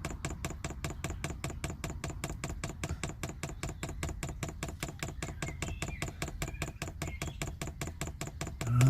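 Diesel heater's fuel dosing pump ticking steadily, about five or six clicks a second, as it pumps fuel up the line to prime the heater, which is still waiting on the fuel to arrive. A low hum runs underneath.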